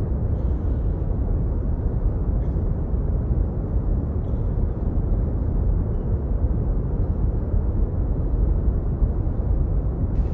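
Brown noise playing as the dance's soundtrack: a steady, deep rushing noise weighted to the low end, with no tune or beat.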